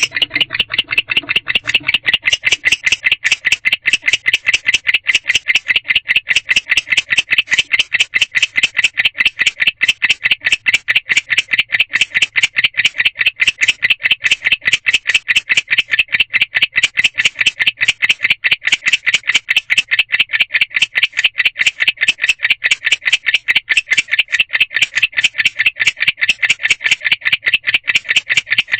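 Male barn owl chirping: a rapid, unbroken train of short chirps, several a second, a call to a mate.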